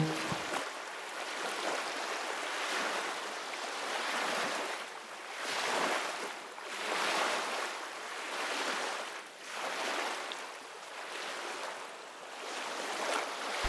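Ocean surf: waves washing in and out, a rushing noise that swells and ebbs every second or two.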